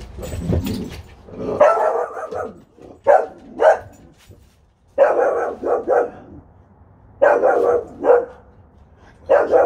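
A dog barking in quick bouts of several sharp barks each, with short pauses between the bouts, during bite-sleeve play. A lower scuffling rumble comes before the first bout.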